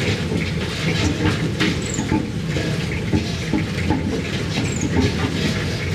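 Road roller's engine running with a steady low rumble and continuous loose rattling and clatter.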